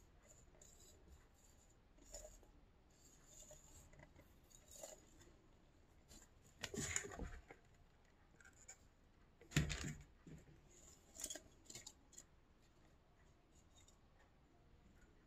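Faint scratching and rubbing as a pebble-and-gravel-studded flower pot is handled and turned in the hands, with a few louder brief scrapes partway through.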